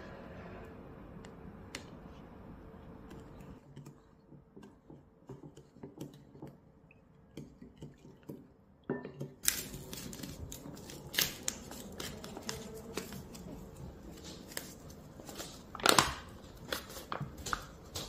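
Paper bag of bread mix being torn open and handled: crackling, tearing and crinkling of stiff paper for the second half, loudest near the end. The first half is quieter, with a few soft taps.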